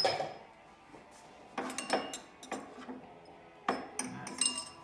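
Stemmed champagne glasses clinking against one another and knocking on plywood shelves as they are set into a minibar's compartments. A series of light, irregular clinks, some ringing briefly.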